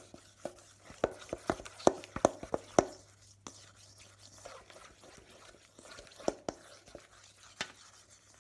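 A spatula stirring thick melted chocolate and hazelnut paste in a metal bowl, knocking and scraping against the bowl in irregular clicks. The clicks come thick and fast for the first three seconds or so, then thin out to an occasional tap.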